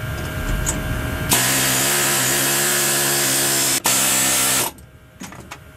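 Pneumatic air hammer peening the rivets that fix a new friction lining onto a truck drum-brake shoe. It starts about a second in and runs steadily for about three seconds, breaking off for an instant shortly before it stops.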